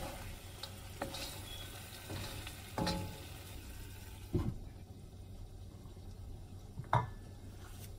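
Wooden spoon stirring and scraping lamb in a nonstick pan while the meat sizzles gently. About four seconds in, a glass lid knocks down onto the pan and the sizzle goes duller, and there is another knock near the end.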